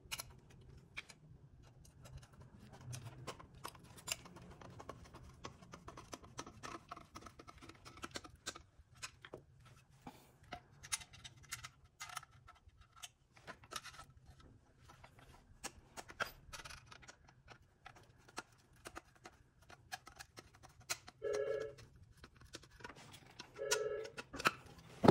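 Small clicks, taps and scrapes of a rectangular sealed-beam headlight and its metal mounting ring being handled while screws are driven in with a screwdriver. There are two brief squeaks near the end, about two seconds apart.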